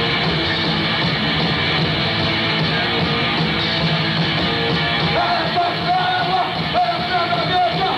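Punk rock band playing live: distorted electric guitars, bass and drums, sounding dull and muffled, with no highs. A long wavering held note comes in about five seconds in.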